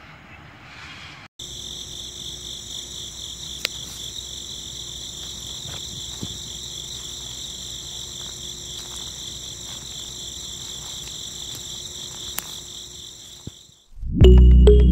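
Crickets chirping in a steady, shimmering high trill. Loud music cuts in near the end.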